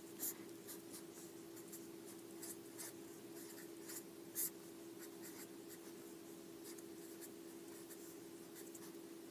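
Felt-tip marker scratching in short strokes on paper as numbers are written, faint, over a steady low hum.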